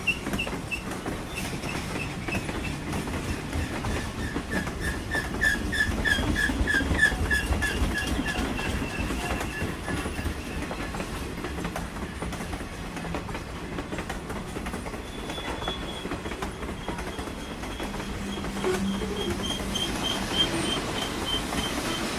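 Train passing at close range: wheels running and clacking over the rail joints, with a rapidly pulsing high-pitched wheel squeal. The low rumble swells to its loudest about a quarter to a third of the way in, then settles.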